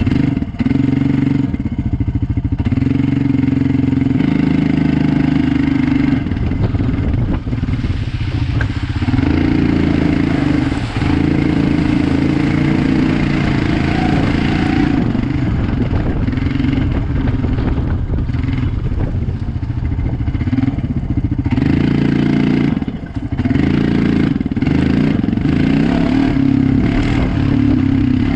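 Quad (ATV) engine running hard under the rider's throttle, revving up and easing off several times as it is ridden over a dirt track into mud.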